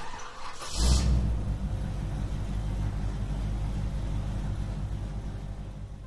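Car engine sound effect: a sudden rush of noise swelling about a second in, then an engine running steadily at a deep, even pitch, fading out near the end.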